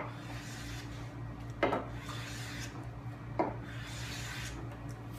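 Lie-Nielsen No. 95 edge plane taking shavings along a board edge, about three strokes of soft scraping hiss, with a sharp wooden knock between strokes as the plane is set back on the wood. The strokes are squaring up an edge that had gone slightly out of square.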